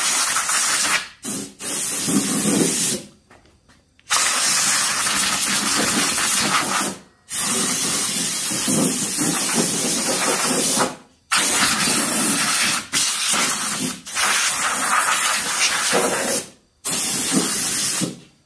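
Compressed air hissing from an air blow gun with a long extension wand, in about eight blasts of one to four seconds each with short breaks between, blowing debris off a mower deck.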